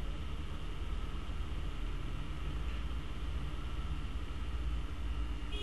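Steady low background rumble with a faint even hiss, no distinct events.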